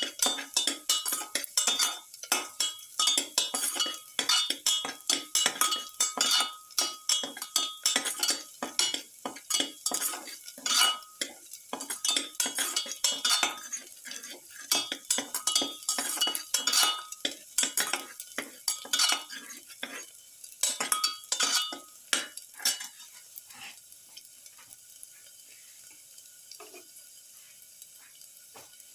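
Perforated steel spatula scraping and clinking against a stainless-steel pan in quick, repeated strokes, stirring garlic cloves frying in a little oil, with a light sizzle underneath. The stirring stops about two-thirds of the way in, leaving only the faint sizzle.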